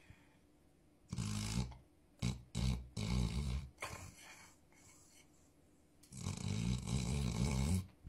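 Sleeping dog snoring: one snore about a second in, a quick run of short snorts between about two and four seconds, then a long snore near the end, with quiet breaths between.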